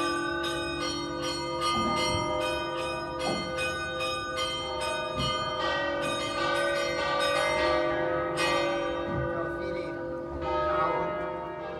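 The three bells of a civic bell tower, a large bell cast in 1878 by Pasquale Mazzola and two smaller ones cast in 2015 by De Poli, rung together in a festive peal in D-flat, the bells not tuned to a scale. The strikes come quickly and overlap, thin out in the last few seconds, and the ringing fades away near the end.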